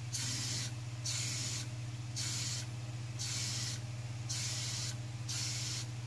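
Aerosol can of A/C flush solvent spraying through a plastic tube into the evaporator port, in short hissing bursts about once a second, six in all, over a steady low hum.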